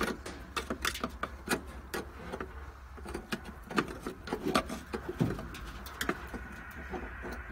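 Gloved hands rummaging behind a truck's heater box: irregular light clicks, taps and rattles of metal parts and nest debris being handled, over a steady low hum.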